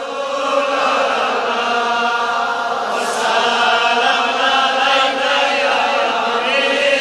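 A man's voice chanting a Kashmiri naat, a devotional song in praise of the Prophet, in long, drawn-out melodic notes.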